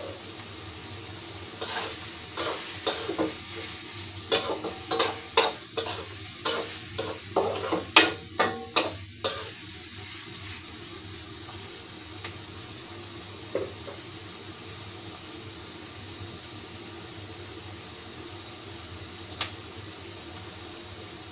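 Stirring in a frying pan: a run of sharp spatula scrapes and taps against the pan over several seconds, then two single knocks later on. A steady low hiss runs underneath.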